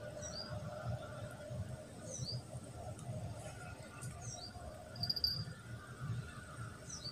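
A small bird calling with short, high, falling chirps, a pair of them about every two seconds, and a brief high trill about five seconds in, over a steady low background rumble.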